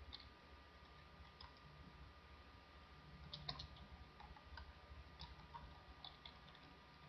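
Faint, irregular key clicks of typing on a computer keyboard, over a faint steady hum.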